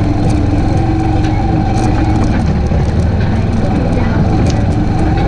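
ATV engine running steadily under way, with scattered sharp clicks over it.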